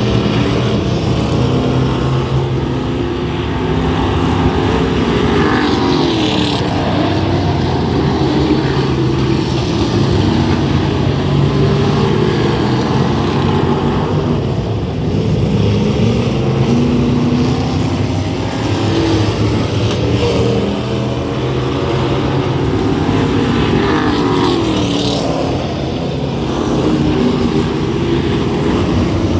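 Several racing engines running together on a track, their pitch rising and falling again and again as they accelerate, lift and pass.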